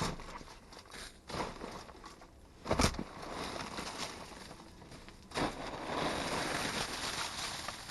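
Rummaging through trash bags in a snow-covered dumpster: a few separate knocks and thumps, the loudest about three seconds in, then a steady rustle of bags and trash from a little past halfway.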